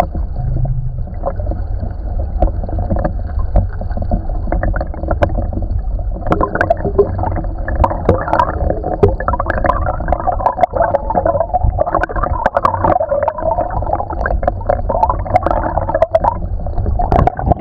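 Muffled rush and gurgle of a shallow creek flowing over gravel, heard through an action camera submerged in the stream, with a steady low rumble and many small clicks and knocks. The wash grows busier from about six seconds in.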